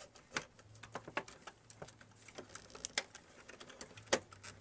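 Screwdriver working a small screw into the DVD recorder's chassis: a run of irregular light clicks and taps, several a second, with one louder click near the end.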